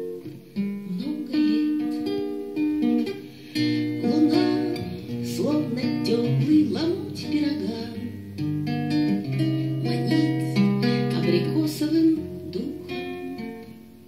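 Acoustic guitar playing an instrumental passage of plucked notes and chords between sung verses of a song, getting quieter near the end.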